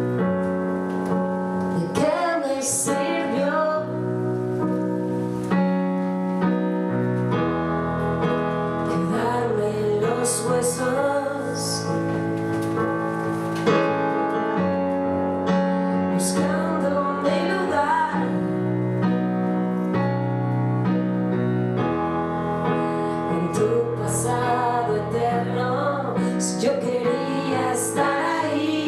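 Live song: a woman singing over sustained piano or keyboard chords, the voice coming in and out between phrases.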